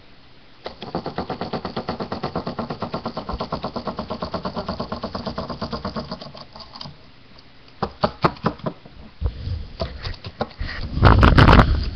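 A rhythmic, engine-like puttering for about six seconds, then a few sharp knocks and a loud rumbling bump near the end.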